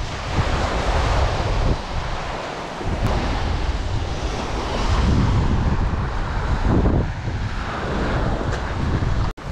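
Surf washing up the beach, swelling and easing wave by wave, with wind buffeting the microphone. The sound drops out for an instant near the end.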